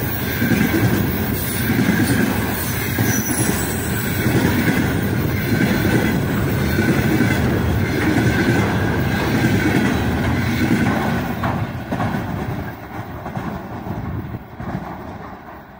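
Container flatcars of a long freight train rolling past at speed, steel wheels running over the rails. The noise fades from about twelve seconds in as the end of the train moves away.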